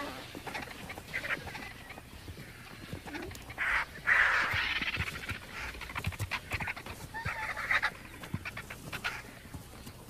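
Vultures calling and squabbling as they feed on a carcass. The loudest burst of calls comes about four seconds in, and a shorter one follows near eight seconds.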